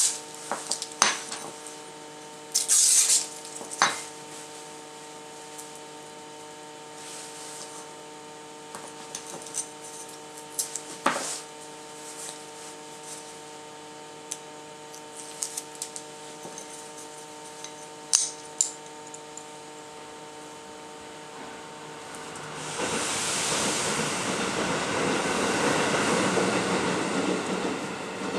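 Thin aluminium plates clicking and clinking as they are handled and set down on a wooden workbench while being stuck together with double-sided tape, over a steady low hum. About 22 seconds in, a longer rasping, rustling noise starts and runs for several seconds.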